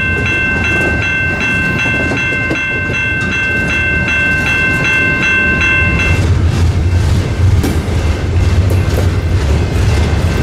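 Double-stack intermodal container train rolling past, its freight cars rumbling and clattering on the rails. For the first six seconds a metallic ringing is struck about two and a half times a second, then stops, leaving a louder low rumble.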